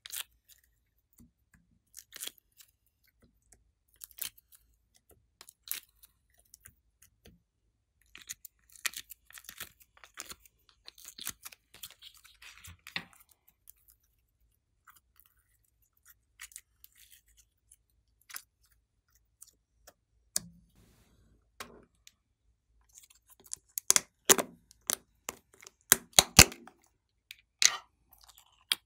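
Hands handling slime: scattered sticky clicks and crackles as soft slime is peeled out of a plastic tray and stretched between the fingers. Near the end comes a run of louder sharp clicks and pops.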